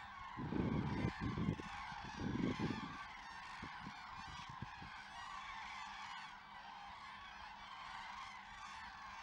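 A large flock of common cranes calling together: a dense, continuous chorus of trumpeting calls. Low rumbling bursts sit under the calls for the first three seconds.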